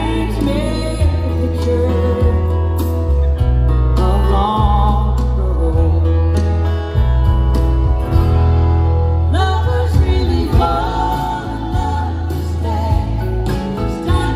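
Live country band music with a woman singing lead over acoustic guitars and drums, with heavy bass, heard from within an arena audience.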